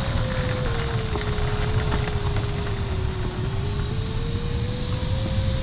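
Airflow rushing over the LS3 glider's cockpit, with the variometer's single steady tone sliding slowly lower in pitch and then back up near the end, tracking the changing climb or sink rate.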